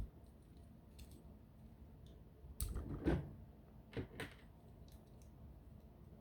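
Plastic Bionicle building pieces being pulled apart and handled: a cluster of clicks and knocks about two and a half seconds in, then two sharper clicks about a second later.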